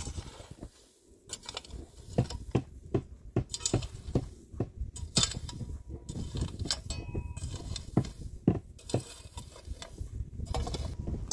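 Irregular clinks and knocks of hard objects being handled, the kind made by dishes and utensils set down and moved about, with a short ringing clink about seven seconds in.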